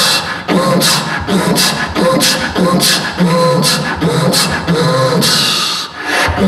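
A man beatboxing into a handheld microphone, amplified over a PA: a steady rhythm of sharp hissing cymbal-like strokes over short hummed bass tones.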